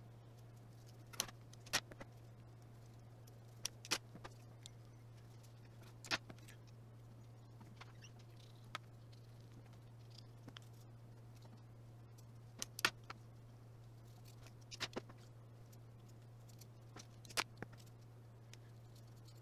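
Small threaded metal parts of a Bedexut bed-frame anti-shake tool clicking and clinking now and then as they are handled and screwed together, irregular light clicks with the sharpest about two-thirds of the way in. A steady low hum lies under them.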